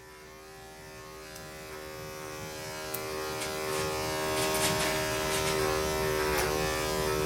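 Electric pet grooming clippers running with a steady buzzing hum, growing louder over the first few seconds and then holding steady as they trim hair at a dog's lip, with a few faint clicks.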